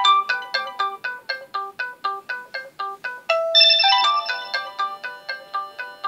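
A built-in LG K10 LTE ringtone: a plucked-string style melody of quick notes, about four a second. A little past halfway a louder, brighter chord swells in, and then the quick notes carry on.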